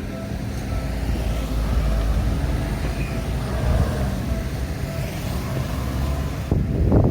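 Road traffic: motor vehicles running and passing with a low steady rumble, growing louder near the end as one passes close.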